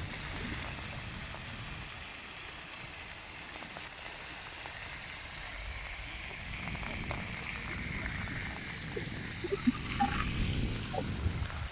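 Outdoor ambience: a steady rushing wash with a low rumble underneath, and a few short faint calls and knocks about nine to eleven seconds in.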